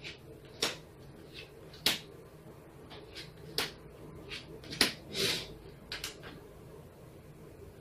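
Playing cards being dealt one at a time onto piles on a table: a series of sharp, irregularly spaced card slaps, with a longer swish of a card sliding a little past halfway.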